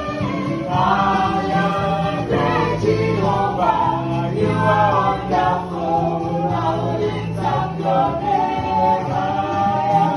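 Background music: a song with a group of voices singing together over sustained bass notes, in a gospel style.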